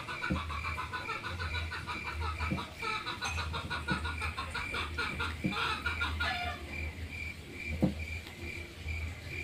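Chickens clucking in a quick, rattling run that stops about two-thirds of the way through, over an insect's steady pulsing chirp. A few soft knocks, the loudest near the end.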